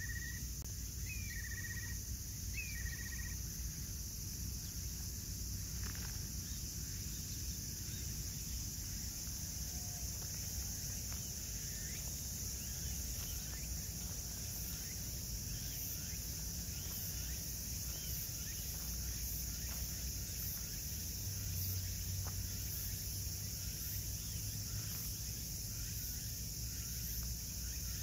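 Steady high-pitched chorus of insects calling, with a bird giving three short calls in the first few seconds and a low steady rumble underneath.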